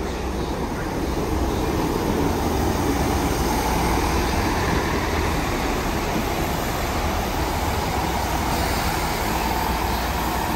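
GWR Class 165 Turbo diesel multiple unit drawing into the platform: a steady diesel engine rumble and running noise that grows louder as it nears during the first couple of seconds, then holds, with a faint steady whine in the later part.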